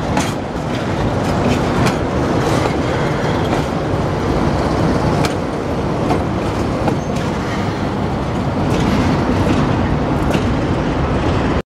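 A freight train of empty wagons and its electric locomotive passing at close range, a steady rumble of wheels on rail with sharp clicks as the wheels cross rail joints. The sound cuts off suddenly near the end.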